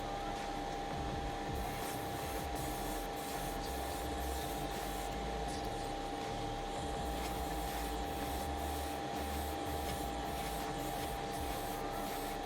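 Mr.Hobby PS289 airbrush spraying paint: a steady hiss of air over the hum of its compressor, with faint regular flicks in the hiss.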